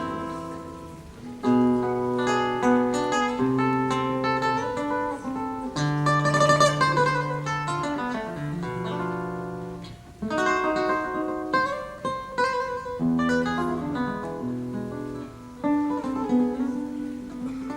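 Acoustic guitar playing an instrumental passage of a Gypsy song, strummed chords and melodic lines with several strong strums.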